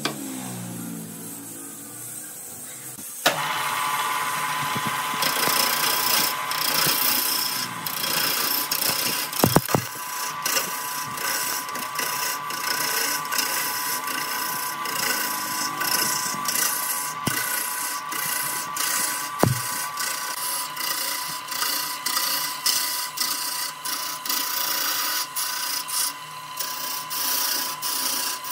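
About three seconds in, a hand-held turning tool starts cutting into a glued-up laminated wood blank spinning on a wood lathe: a continuous rough cutting and scraping noise with a steady high tone. A few sharp knocks break through it.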